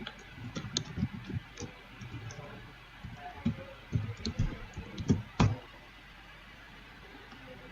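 Irregular clicking and tapping of a computer keyboard and mouse, the loudest clicks about five seconds in.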